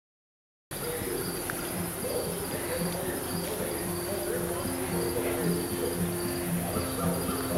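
Crickets chirping steadily over soft music, starting just under a second in.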